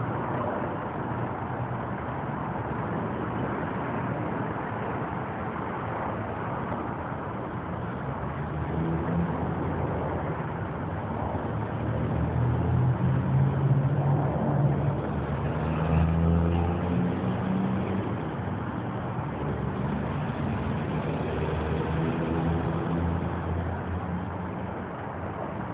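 Continuous road traffic with vehicles passing. A louder vehicle's engine swells about halfway through, and another passes a little later.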